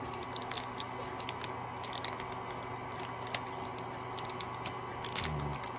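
Small clear plastic zip bag crinkling as it is handled, in a scatter of short sharp clicks and crackles over a steady hum.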